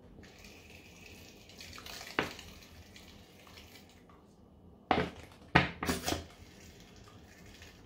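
Chili sauce squeezed from a plastic squeeze bottle into a pot of soup: a soft hissing squirt for about four seconds, with one click partway through. Several sharp plastic and metal knocks follow near the end as the bottle is handled over the pot.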